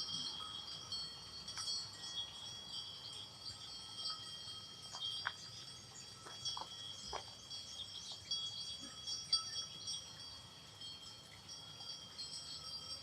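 Livestock bells on a grazing herd, a steady overlapping ringing with scattered clanks as the animals move.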